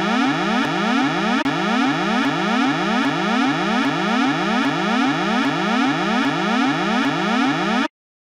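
Electronic alarm siren sounding a harsh, buzzy tone that sweeps upward over and over, about two sweeps a second, then cuts off suddenly near the end.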